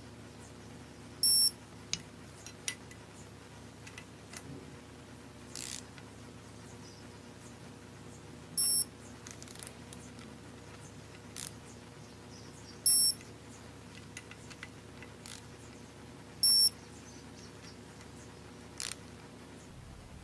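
Digital torque wrench beeping four times, short high beeps a few seconds apart, each signalling that an oil pump bolt has reached its set torque. Faint clicks of the wrench and socket on the bolts come between the beeps.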